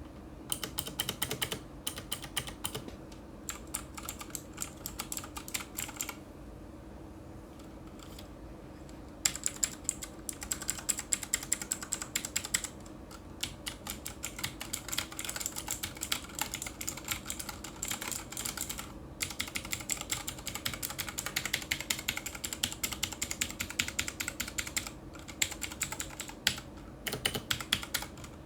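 Fast typing on a Cosmic Byte Firefly tenkeyless mechanical keyboard with clicky Outemu Blue switches: a dense stream of sharp key clicks, pausing for a few seconds about a quarter of the way in and briefly again past the middle.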